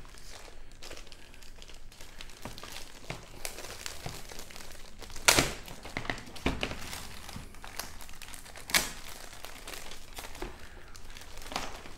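A large clear plastic bag crinkling and rustling as it is handled and pulled off model kit parts sprues, with a few sharp knocks, the loudest about five seconds in.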